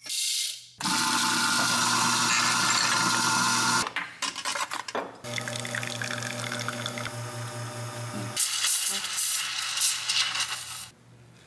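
An espresso routine. A coffee grinder's motor runs for about three seconds, then come a few knocks. The Rocket R58 espresso machine's pump hums during the shot, and near the end its steam wand hisses while frothing milk.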